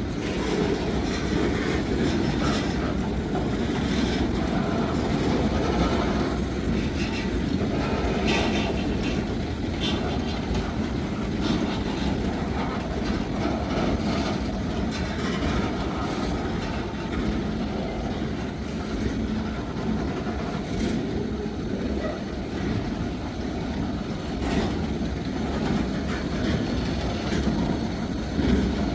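Freight train boxcars rolling past: a steady rumble of steel wheels on the rails, with occasional sharp clicks and clanks.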